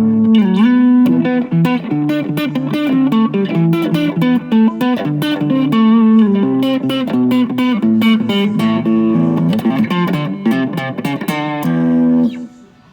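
Electric guitar played with a slap technique through an Xotic SP Compressor pedal: a run of sharp, percussive slapped and popped notes, with a bent note about half a second in. It stops on a held chord that cuts off near the end.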